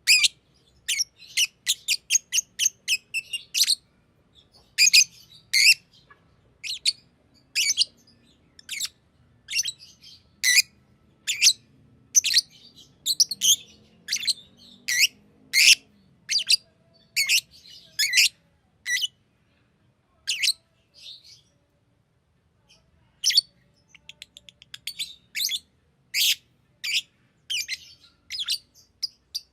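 Green lovebird chirping in rapid strings of short, sharp, high-pitched chirps, falling silent for a few seconds about two-thirds of the way through.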